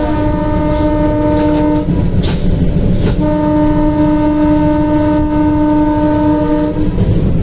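Locomotive horn sounding twice, a chord of several steady tones: a blast of about two seconds, then a longer one of about three and a half seconds. Under it runs the continuous low rumble of the moving train.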